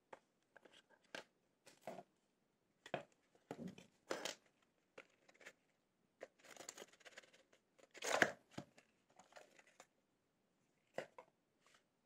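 Cardboard box and paper packaging handled by hand: faint, irregular rustling, scraping and light taps, with a louder rustle about two-thirds of the way through.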